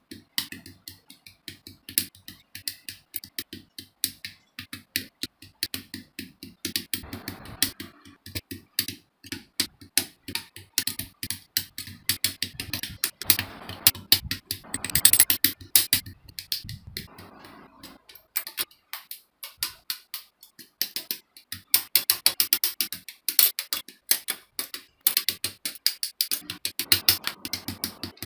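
Plastic model kit parts being snipped from their runners with side cutters: a long run of sharp plastic clicks, several a second, with short stretches of rustling as the runners are handled.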